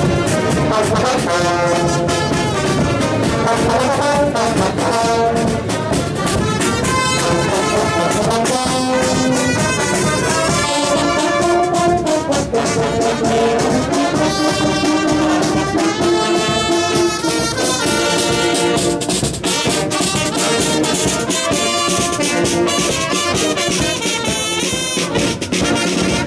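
Carnival marching brass band playing a tune as it passes, trumpets, trombones and saxophones over a steady beat.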